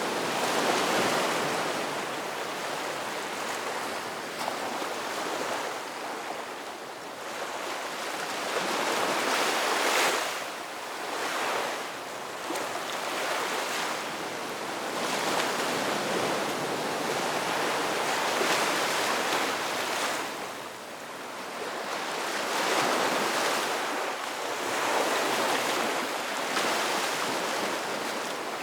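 Ocean surf breaking on a beach: a continuous wash of waves swelling and receding, with louder breakers every few seconds.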